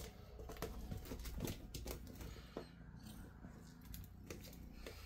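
Irregular light clicks and scuffs of a cat's claws and paws scrabbling on a canvas sneaker and the wooden floor as it plays with the shoe.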